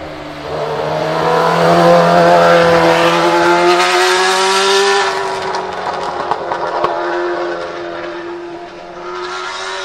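Leyton House March-Judd Formula One car's naturally aspirated 3.5-litre Judd V8 at high revs accelerating past. It is loudest from about two to five seconds in, with the pitch shifting as it goes by, then fades as it pulls away and climbs again near the end. Spray hisses off the tyres on the wet track.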